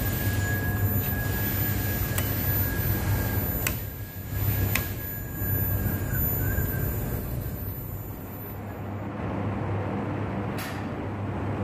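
Steady hum and rush of a UniCure paint spray booth's air-handling fans running, with a thin steady whine over it in the first half and a few light clicks.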